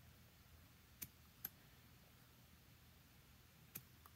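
Near silence broken by three brief clicks as a Mikuni carburetor is handled with a small tool: one about a second in, another half a second later, and one near the end.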